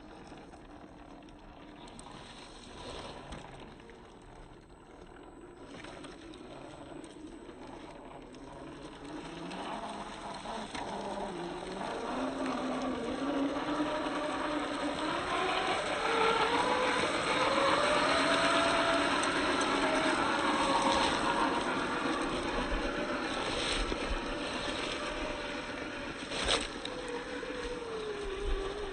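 Electric motor and drivetrain of a 1/10-scale RC crawler whining, the pitch rising and falling with the throttle and growing louder from about a third of the way in. A couple of sharp knocks near the end.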